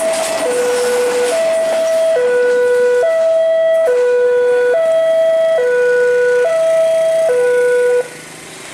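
Railway level-crossing warning alarm sounding a two-tone hi-lo signal, alternating about every second, then cutting off suddenly near the end. The alarm stopping marks the crossing clearing after the train has passed.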